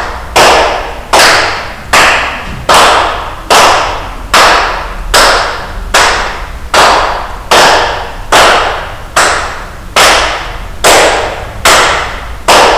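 Hand claps in a slow, steady beat, about three every two seconds, each clap ringing out in the hall.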